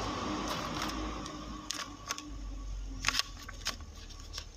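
A hand-held paper puppet being moved and handled close to the microphone: a few scattered sharp clicks and rustles, several close together about three seconds in, over a steady low hiss.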